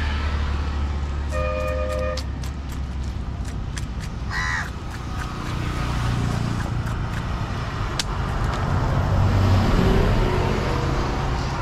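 A motor vehicle's engine rumbles low and steady, strongest in the first few seconds and again later. Over it come sharp knocks and scrapes of a knife scaling and cutting tilapia on a wooden chopping block. A brief two-tone horn beep sounds about a second and a half in, and a short call comes near four and a half seconds.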